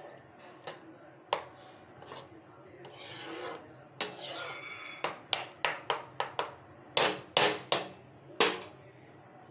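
Spatula scraping and stirring a thick onion-tomato masala gravy in a nonstick kadhai as it is fried down. A few slow strokes come first, then quicker, sharper scrapes in the second half.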